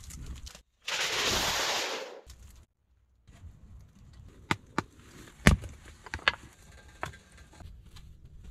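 A loud burst of rustling noise lasting about a second, then after a short gap a scatter of sharp knocks and snaps, the loudest about halfway through.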